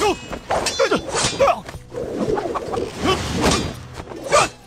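Kung fu fight sound effects: a quick run of sharp whacks from blows and a swung stick, swishes of moving limbs and cloth, and short shouts and grunts from the fighters between the strikes.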